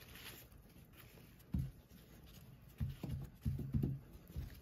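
Paper towel rustling and soft handling sounds as hands pat and shift strawberries on it, with a few dull low thumps in the second half.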